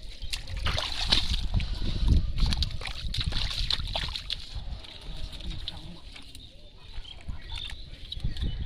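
Water splashing and sloshing in irregular bursts as hands work through it, busiest in the first half and thinning out after about five seconds.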